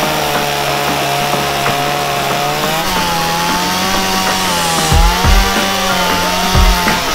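Stihl two-stroke chainsaw running at high revs as it cuts into a log standing on end. Its pitch steps up slightly about three seconds in, and a few low thumps come in the second half.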